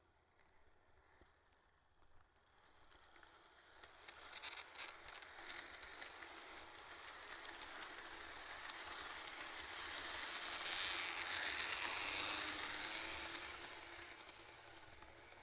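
A 3D-printed model train running along its track past the listener, a rattling wheel-and-rail noise with a few clicks, getting louder to a peak about twelve seconds in and then fading away.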